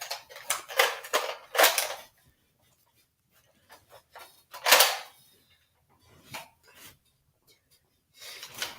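Rustling and handling noises in a quick run of short bursts, then a single louder burst about five seconds in, most likely the foam dart blaster firing.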